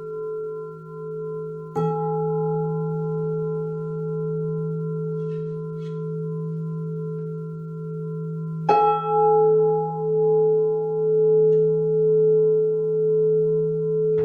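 Resonant struck metal instruments ring with long, overlapping sustained tones that pulse slowly as they sound together. Two fresh strikes, about two seconds in and again near nine seconds, each add a new higher tone to the ringing.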